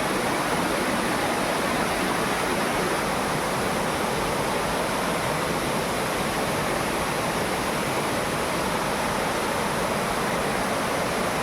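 Waterfall water rushing steadily, an even, unbroken noise with no distinct splashes.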